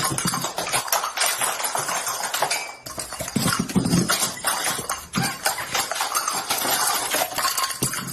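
Long rapid series of loud cracks and pops presented as back cracking, with a few heavier low thumps about three and a half to four seconds in.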